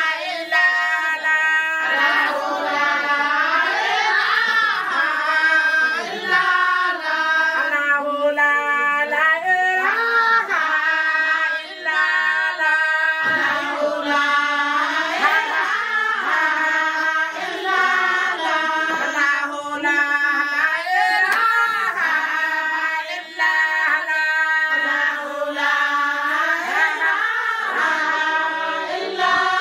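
A group of women singing a song together, several voices carrying an unbroken melody.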